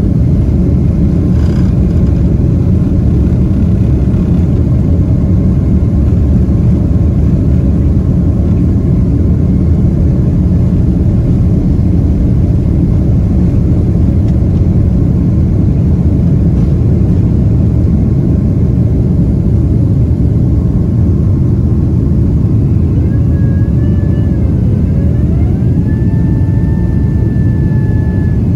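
Cabin sound of a Boeing 767-300 on its takeoff run and climb-out: a loud, steady jet-engine rumble at takeoff power. About 23 seconds in, a whine rises in pitch and then holds. This is the hydraulic system raising the landing gear.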